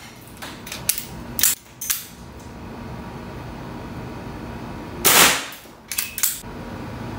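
AP 50 4.5 mm pre-charged (PCP) air pistol fired once about five seconds in: a sharp crack with a short ring. Shorter clicks and knocks come about a second in and again just after the shot, typical of the action being cocked to chamber the next pellet from the magazine.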